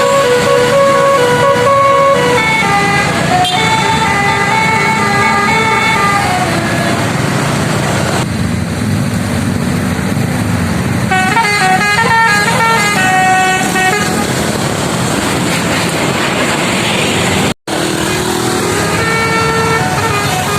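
A Basuri V1 telolet horn, a multi-tone bus horn, playing a tune of stepped, held notes in several runs over a steady low rumble. The sound drops out briefly near the end.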